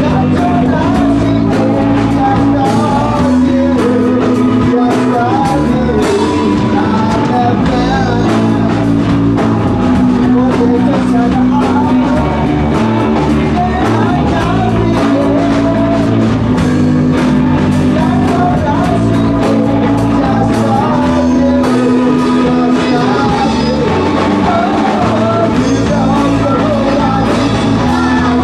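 Live rock band playing loud, with electric guitars and a drum kit under a man singing into the mic.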